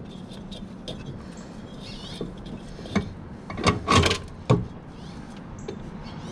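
Knocks and clatter from hand work on a zero-turn mower's deck while a deck belt is being fitted: a single knock about three seconds in, a loud cluster of knocks around four seconds, and one more half a second later, over a steady low hum.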